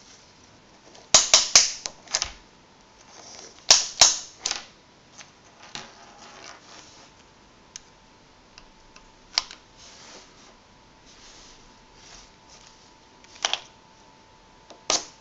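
Sharp plastic clicks and clatter from a plastic body tape measure being handled and its tape pulled out, in quick bunches about a second and four seconds in, then single clicks further apart.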